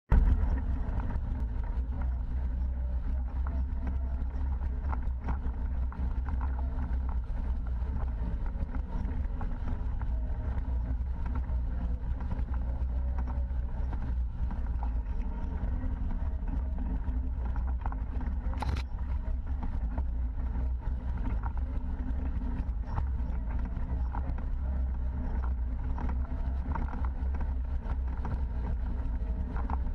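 Engine of an off-road side-by-side running steadily as it drives a trail, heard as a continuous low drone with small knocks and rattles. A brief high-pitched chirp sounds about two-thirds of the way through.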